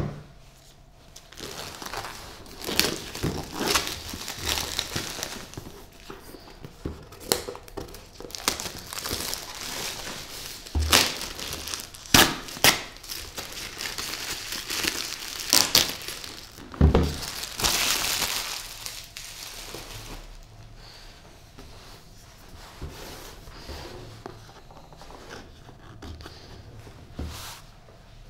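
Packaging being handled and unwrapped, crinkling and rustling, with a handful of sharp knocks and clicks in the middle stretch. The handling dies down to quieter rustling over the last third.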